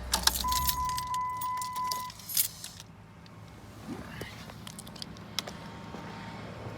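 A car engine hum dies away in the first half-second. A steady electronic beep follows for under two seconds, over keys jangling and sharp clicks of handling, with a louder clack about two and a half seconds in.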